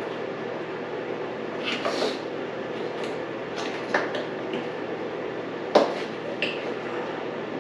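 Scattered light clicks and knocks of hand-tool and parts handling while electrical connectors are worked free on a dirt bike's subframe, with a few sharper clicks about two, four and six seconds in, over a steady background hum.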